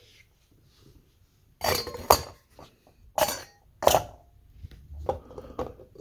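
Metal clinks and knocks from cut-open oil filter parts being handled and set down: a few sharp strikes with a short metallic ring about two to four seconds in, then fainter taps.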